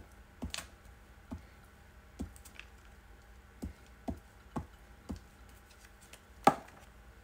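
Glue stick dabbed and rubbed onto a paper piece on a cutting mat: a string of soft taps, with one sharp, louder click near the end.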